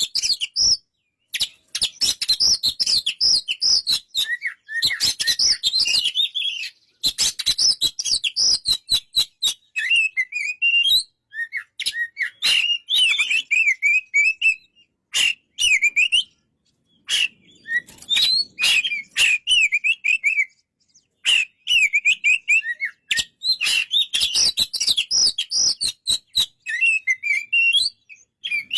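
Oriental magpie-robin (kacer) singing: a rapid, varied run of whistled and warbled phrases in bursts, separated by short pauses and mixed with sharp clicks.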